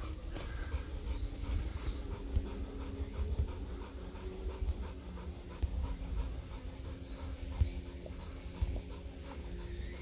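Golden retriever panting quickly and steadily, about four breaths a second, with a few short high chirps over it.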